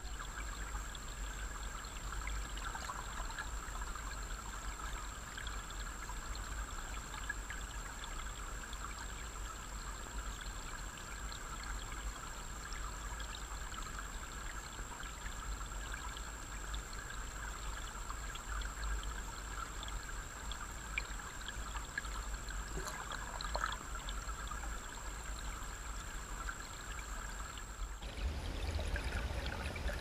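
Flowing stream water heard from a camera submerged in it: a steady rushing with a deep rumble underneath, the sound shifting slightly about two seconds before the end.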